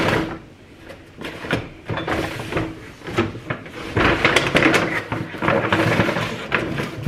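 Groceries being handled and unpacked: rustling packaging, with a run of clicks and knocks as items are moved and set down. The rustling is densest in the middle of the stretch.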